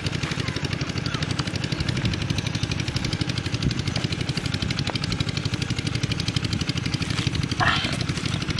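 A small engine running steadily with a fast, even pulse. A few faint knocks, and a brief higher-pitched sound near the end.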